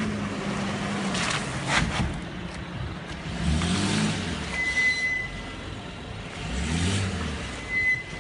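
Brake pads on a Mercedes-Benz W221 S-Class squealing over the car's running noise: a high, steady squeal lasting under a second about halfway through, and a shorter one near the end. The squeal is terrible and worsening, even though new Textar pads and discs are fitted.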